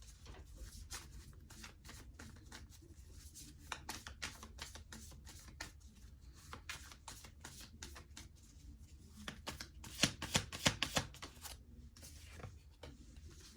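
Tarot cards being shuffled and handled: a steady run of soft, quick clicks, with a louder flurry about ten seconds in.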